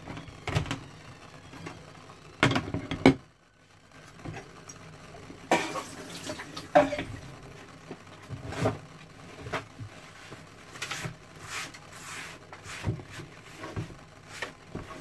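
Kitchen clatter at a sink: bowls and dishes handled and set down, a string of separate clunks and knocks, loudest about two and a half seconds in.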